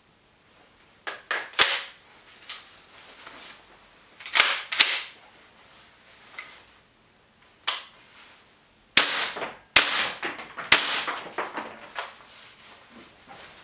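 WE MSK gas blowback airsoft rifle handled and fired in single shots: a string of about ten sharp clacks and cracks at uneven intervals, each with the bolt slapping back. The loudest come in a quick cluster about nine to eleven seconds in.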